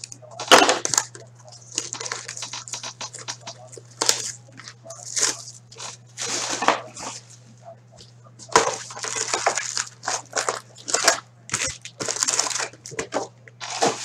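A cardboard box of hockey cards being opened by hand and its wrapped packs pulled out and set down: an uneven string of rustling, crinkling and scraping noises.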